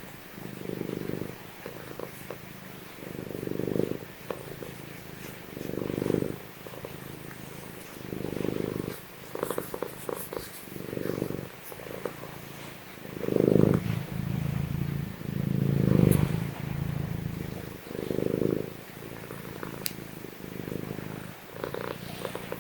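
Domestic cat purring steadily, the purr swelling and fading with each breath about every two and a half seconds: a contented purr while its head is massaged.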